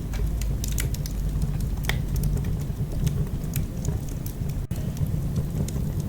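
Wood fire in a fireplace crackling, with irregular sharp snaps and pops over a low steady rumble of the flames. The sound cuts out for an instant about two-thirds of the way through.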